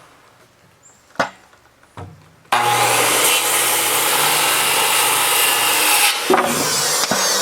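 Two short wooden knocks, then about two and a half seconds in a power saw starts cutting 2x6 tongue-and-groove boards. It runs loud and steady, with a brief dip near the end.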